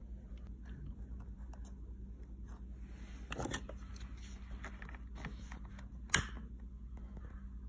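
Small handling noises of wires and a plastic rocker switch over a steady low hum, then a single sharp click about six seconds in from the piezo igniter of a butane torch lighter, brought up to heat-shrink tubing.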